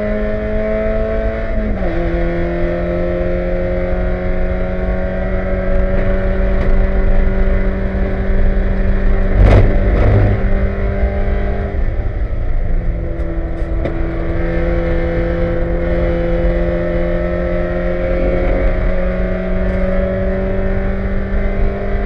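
Spec Miata race car engine pulling hard from inside the cockpit, with a quick upshift about two seconds in and the revs climbing slowly in each gear. A loud clunk comes about ten seconds in and a few sharp clanks follow later from the suspension, where a replaced lower A-arm was left loose.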